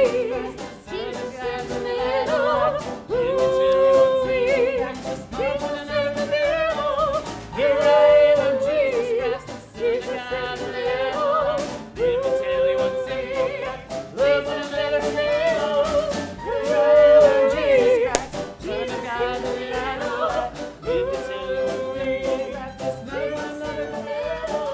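Music: a high lead melody, sung without clear words, in short phrases about every two seconds over a backing with a steady beat.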